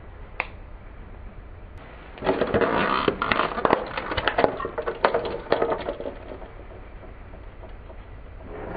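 Car tyre rolling onto a hard plastic My Little Pony castle playset. Starting about two seconds in, the plastic cracks and crunches under the weight for about four seconds, with many sharp snaps.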